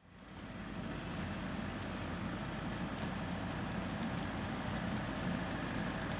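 Farm tractor engine running steadily as it moves through the orchard, fading in over the first second.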